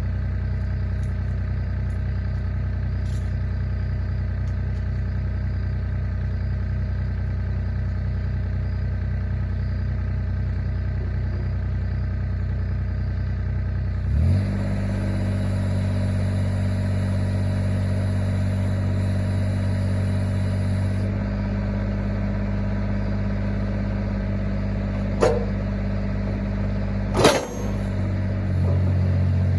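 Engine running steadily, stepping up in speed about fourteen seconds in, with two sharp knocks near the end.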